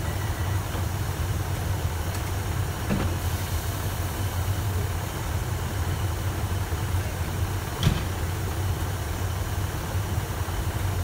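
Diesel multiple unit idling at a platform, its engine giving a steady low drone. The train's sliding passenger doors close, with a short knock about three seconds in and a louder sharp thump near eight seconds. A high steady tone stops within the first second.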